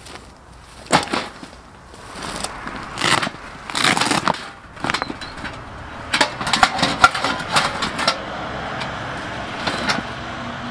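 Irregular knocks, scuffs and rustling of camping gear being handled and set down on dry grass and gravel, with a few sharper knocks about a second in and around the middle.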